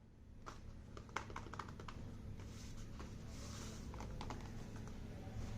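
A parcel's packaging being handled by hand: a run of small sharp clicks and taps, with a brief rustle in the middle, over a low steady hum.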